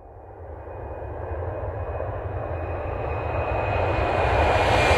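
Fighter jet's engines roaring in a display pass, growing steadily louder as the jet comes nearer, with a thin high whine on top.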